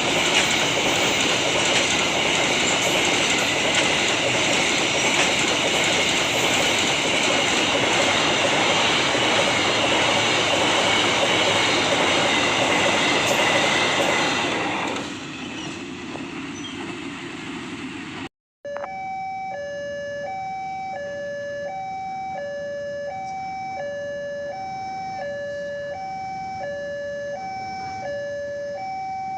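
Train passing close by, a loud steady rush of wheels on rail that drops away about halfway through. After a brief dropout, an electronic level-crossing warning alternates between two tones, each held about 0.7 s.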